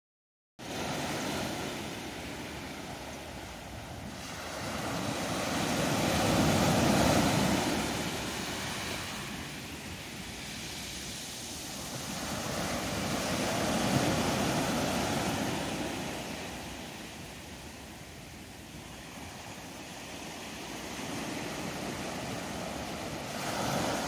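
Small sea waves breaking and washing up a sandy beach, the surf swelling and fading in three slow surges.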